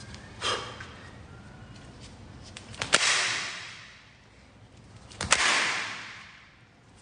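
Shin kicks landing on a bundle of taped wooden slats: two sharp cracks about two and a half seconds apart, each followed by a hissing fade of over a second. The second kick buckles the bundle of slats.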